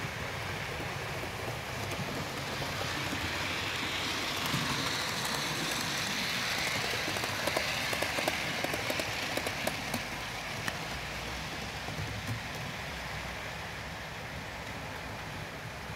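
OO gauge model train running on the layout's track: a steady hiss of wheels and mechanism that swells toward the middle as the coaches pass close, with a quick run of clicks from wheels over rail joints.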